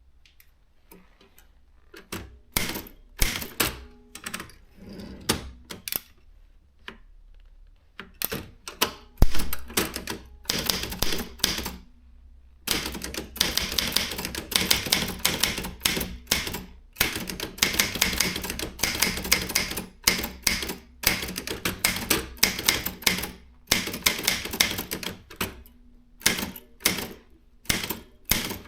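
Consul 1502 typewriter being typed on. A few separate keystrokes come first, then after a short pause fast, dense typing, the keys striking in quick runs with brief breaks.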